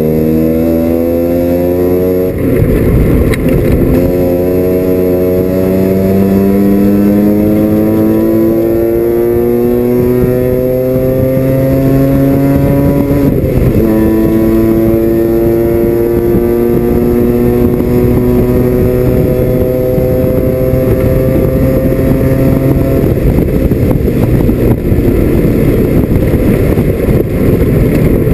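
Mazda RX-7 FC's 13B rotary engine at full throttle, heard from inside the race car's cockpit: the engine note climbs steadily through the gears with two upshifts, about two seconds in and about halfway through. Near the end the steady note breaks up into a rougher, noisier sound.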